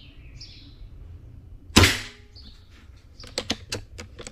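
A single shot from a Kral Puncher PCP air rifle about two seconds in, one sharp crack, with the pellet striking a motorcycle helmet 10 m away. Near the end come several quick light clicks as the rifle is handled.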